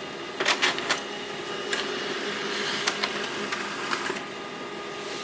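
HP LaserJet M110we laser printer printing a confirmation page: a steady mechanical hum, with a cluster of sharp clicks about half a second in and more clicks of the paper-feed mechanism as the sheet runs through and out.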